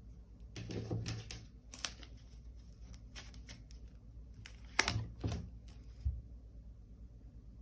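Tarot cards being handled: shuffled and drawn, giving scattered flicks, rustles and light slaps of card on card, the sharpest slap about five seconds in.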